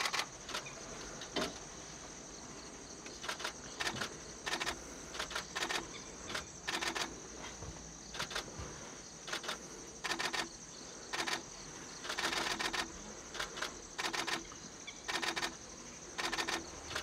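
Camera shutters firing in short rapid bursts, irregularly about once a second, over a steady high-pitched drone of insects.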